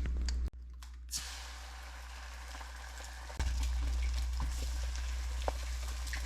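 Food sizzling and crackling in a frying pan, an even hiss dotted with small pops, over a steady low hum.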